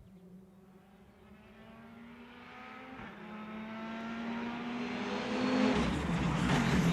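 Rally car approaching on an asphalt stage, its engine pulling hard with the pitch climbing through the gears and one gear change about three seconds in, growing steadily louder. Near the end the engine note turns rougher and much louder as the car nears the curve.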